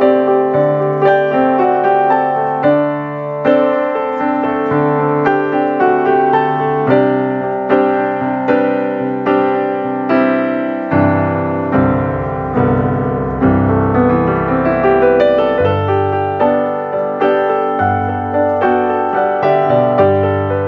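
Background piano music: a gentle tune of evenly struck notes over a bass line.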